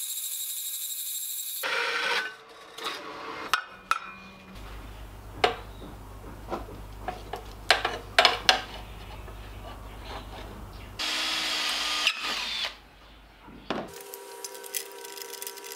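A Hafco Metalmaster metal-cutting bandsaw finishes a cut through aluminium flat bar, then clicks and knocks of parts being handled and fitted to a metal frame. About eleven seconds in a power drill runs in a short burst, and a steady hum starts near the end.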